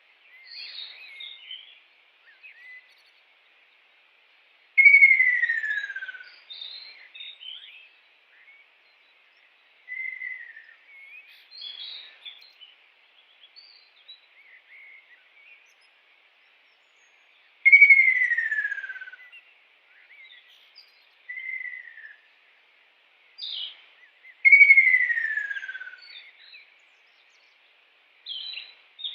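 Kingfisher calling: three loud whistled notes that each slide down in pitch, each followed by a scatter of short chirps, with softer chirps in the gaps between.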